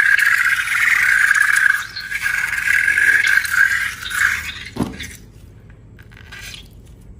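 Air squealing out through a balloon's stretched neck in a steady high squeal, which ends about five seconds in with a quick drop in pitch as the balloon empties.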